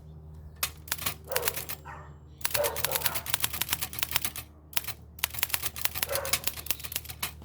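A 1909 Continental Standard manual typewriter being typed on, its type bars striking the platen as sharp keystroke clicks. A few scattered strikes come first, then two quick runs of rapid typing.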